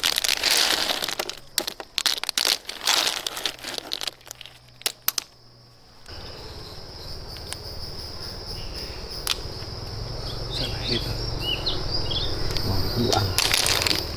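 Crackling and rustling of handled or trodden vegetation for the first few seconds. Then, after a short lull, a steady high insect drone with a few short bird chirps in the second half.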